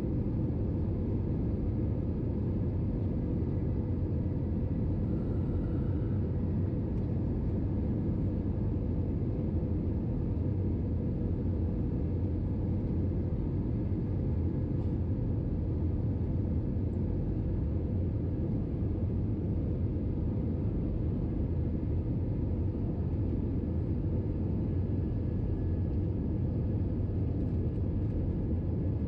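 Airbus A321-211 cabin noise in cruise: a steady, even low rumble of the engines and airflow, with a faint steady hum over it.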